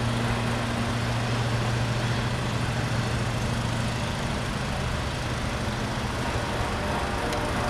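Diesel freight train passing: a steady low engine drone over a constant rushing noise.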